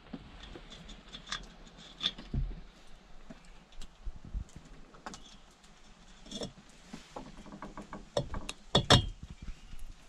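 Light metallic clicks, taps and small rattles of engine parts being handled as a gasket and carburettor are fitted onto a two-stroke engine's intake, with a brief cluster of louder knocks near the end.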